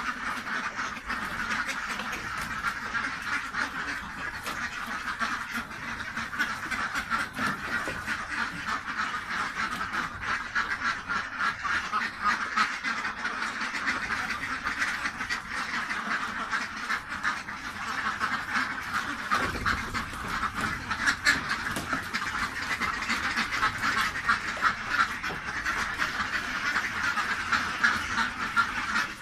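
Flock of domestic ducks quacking continuously, many calls overlapping without a break.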